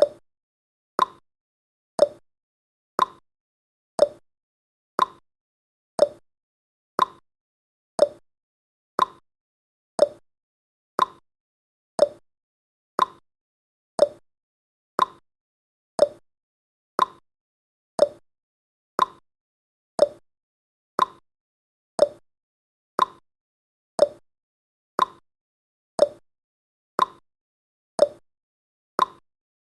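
Countdown timer's tick sound effect: one short, sharp tick every second, steady and evenly spaced, marking off the seconds.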